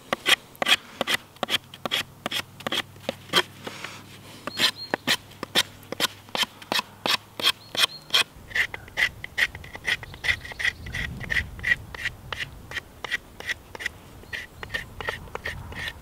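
Knife blade scraping bark off a freshly cut hazel pole in quick, even strokes, about three a second.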